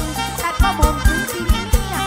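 Live mor lam band music through a PA system, with a steady kick-drum beat about twice a second and a woman singing a melody over it.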